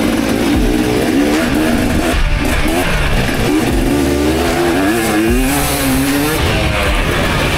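Motocross bike engine revving, its pitch rising and falling again and again as the rider works the throttle through the gears.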